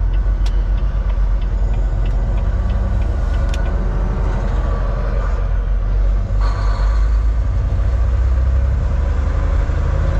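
Inside a moving semi-truck's cab: steady engine and road drone. A faint regular ticking runs through the first few seconds, and a rush of noise comes up a little past the middle.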